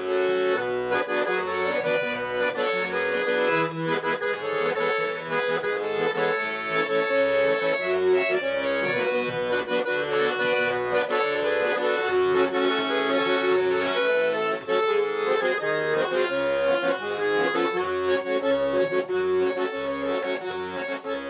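Accordion playing an instrumental introduction: a melody over held chords, with short bass notes on a steady beat underneath.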